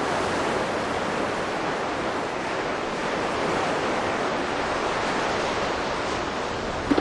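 Ocean surf washing and breaking in the shallows: a steady rushing of water.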